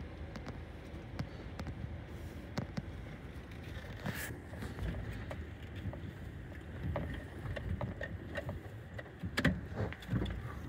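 Low outdoor rumble on a handheld phone microphone, with scattered light clicks and knocks of handling as the phone is carried along; the sharpest knocks come about four seconds in and again near the end.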